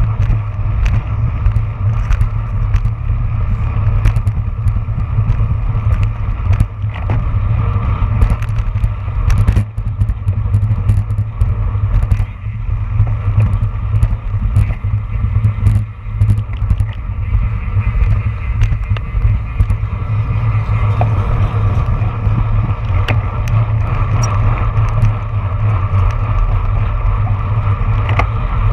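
Wind rushing over the microphone of a handlebar-mounted camera on a road bike at speed, with tyre and road noise and frequent sharp clicks and rattles.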